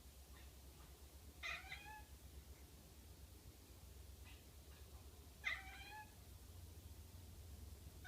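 Domestic cat at a window making two short, odd meow-like calls about four seconds apart, the kind of noises a cat makes while watching something outside.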